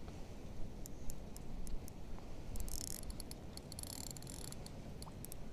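Spinning reel being cranked during a jig retrieve, giving faint quick ticking and clicking in two short spells, a little under 3 seconds in and about 4 seconds in. A low, steady rumble of wind and water runs underneath.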